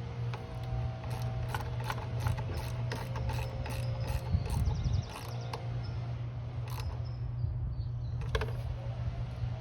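Ratchet wrench clicking in short runs as nuts are tightened down on a motorcycle top-box mounting plate, busy for the first half and sparser after. A steady low drone of landscaping equipment runs underneath.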